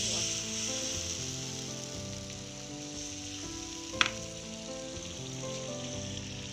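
Hot cooking oil sizzling steadily in a frying pan, with one sharp clink of a metal ladle against the batter bowl about four seconds in. Background music with held notes plays underneath.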